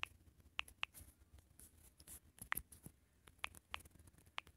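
Faint, short clicks at an uneven pace from typing on a smartphone's on-screen keyboard, one click per key press.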